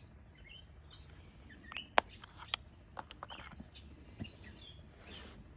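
Knife cutting the packing tape on a cardboard box: a string of sharp clicks and scratchy ticks, the sharpest about two seconds in. Small birds chirp in the background.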